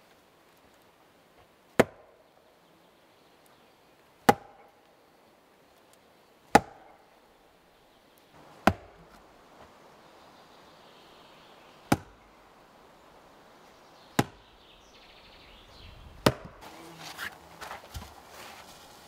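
Seven sharp chopping strikes from a hand tool, roughly every two seconds. Near the end, footsteps and scuffing on dry, sandy soil begin.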